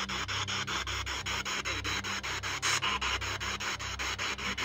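Steady hissing static chopped by rapid, even ticks, about seven a second, over a low pulsing hum.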